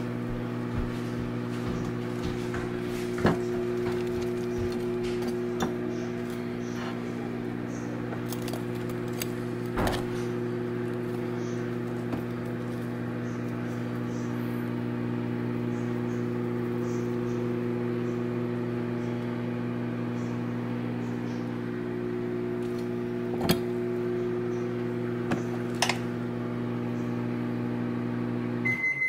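A kitchen appliance humming steadily, cutting off sharply near the end and followed at once by a short single beep. A few light clicks of a metal fork against the air fryer's basket.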